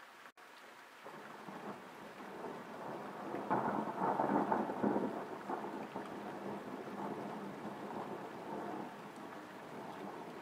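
Thunder rumbling with rain falling. The rumble builds from about a second in, is loudest around four to five seconds in, then slowly dies away.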